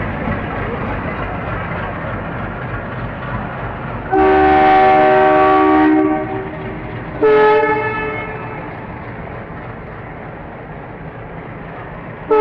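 WDM-3D ALCO diesel-electric locomotive running with a steady chugging rumble. It sounds its horn in one long blast of about two seconds, then a short blast a second later.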